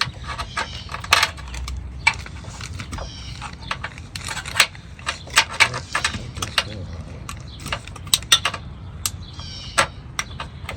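Irregular sharp clicks and knocks, with a few short rattling runs of fast clicks, from hand tools and metal parts being worked on during the fitting of running-board brackets under the car.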